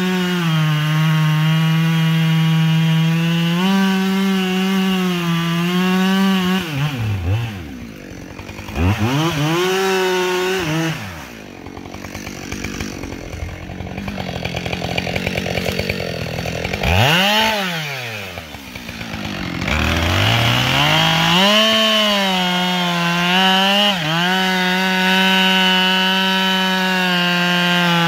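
Two-stroke chainsaw cutting into the base of a big standing oak at full throttle. About seven seconds in it drops off, revs up and down a few times and idles lower, then about twenty seconds in it revs back up and runs steadily in the cut again.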